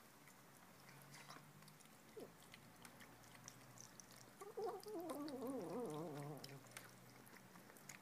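Tonkinese kitten eating from a bowl, with small wet clicks of chewing and licking. About halfway through she gives a wavering, warbling vocal sound for about two seconds while she eats, the 'human'-like noise she makes at her food.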